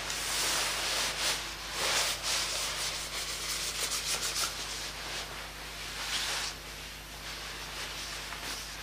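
Fire in an inglenook stove hissing and crackling as nylon fabric burns on the grate. The hiss starts suddenly, crackles thickly for a few seconds and eases after about six seconds.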